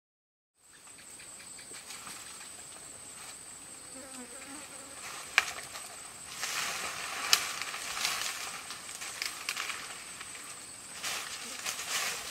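Steady high-pitched insect drone. From about five seconds in, bare feet crunch and crackle through dry fallen leaves and brush against leafy plants.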